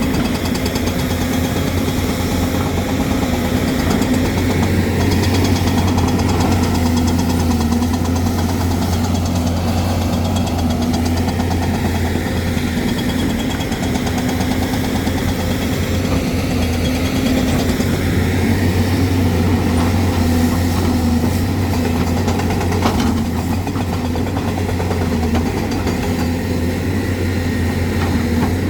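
Hyundai excavator's diesel engine running steadily under work, a continuous low drone with slight swells in level.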